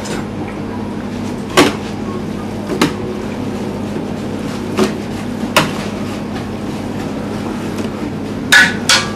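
Steady mechanical hum of kitchen machinery, with a few sharp knocks and clatters from a plastic tub and steel pot being handled as mussel meat and chopped herbs are mixed by hand. The knocks come a few at a time, with a quick cluster near the end.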